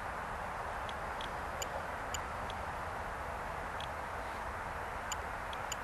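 Steady outdoor background hiss, with about a dozen faint, irregular short ticks scattered through it.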